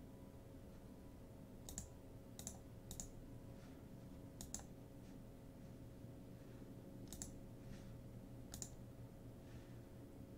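Computer mouse clicking: about six short, sharp single clicks spaced unevenly, over a faint steady hum of room tone.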